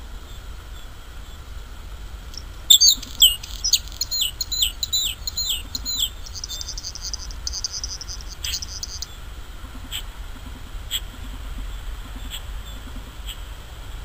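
Male bluethroat singing. A series of loud, sharp, falling notes repeated quickly starts about three seconds in, then runs into a fast buzzy trill, and after that come short single clicking notes about a second apart.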